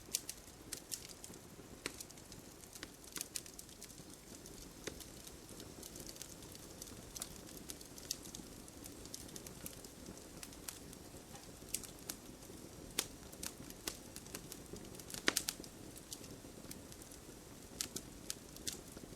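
Campfire burning with a soft steady hiss, the wood crackling and popping at irregular moments, with a quick cluster of louder pops about three-quarters of the way through.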